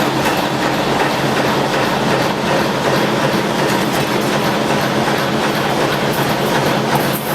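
Automatic fan guard ring forming machine running: a steady mechanical clatter over a low motor hum.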